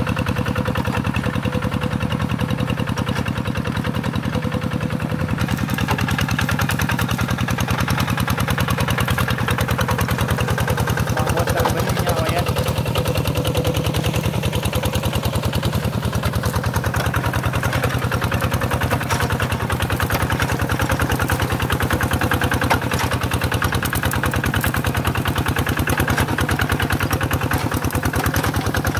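Two-wheel hand tractor's single-cylinder diesel engine running steadily under load as it works through wet paddy mud, with a fast, even beat of firing pulses.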